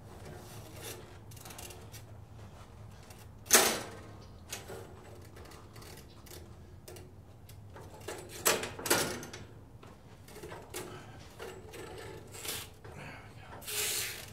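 Irregular metallic clicks and clanks from hands and tools working on a bandsaw sawmill's blade and guide parts, with one sharp knock about three and a half seconds in, a cluster of knocks around the middle, and a short scrape near the end.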